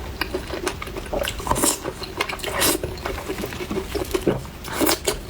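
Close-miked eating: chewing spicy chicken in quick, irregular crunchy and wet mouth sounds.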